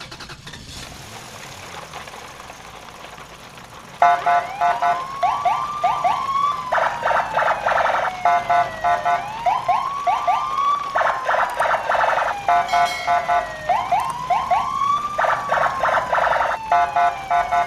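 Electronic car-alarm-style siren sound: a cycle of rapid pulsing tones, rising sweeps and a slow falling tone, repeating about every four and a half seconds. It starts suddenly about four seconds in, after a steady hiss.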